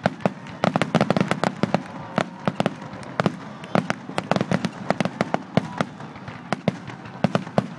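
Fireworks display: a rapid, irregular run of sharp bangs and crackles, several a second, densest in the first couple of seconds and still going near the end.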